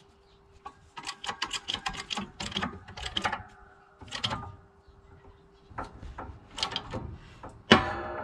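Hydraulic shop press being worked to press the shaft out of a vacuum pump: runs of quick metallic clicks and rattles, then a loud sharp clang that rings on just before the end.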